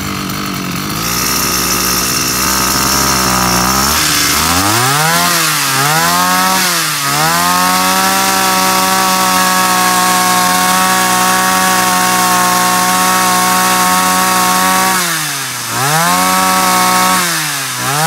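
Robin ECO22 brush cutter's small 23cc two-stroke engine on a test run. It idles for a few seconds, is blipped up and down twice, then holds at high revs for about seven seconds. Near the end it drops back and revs up again twice.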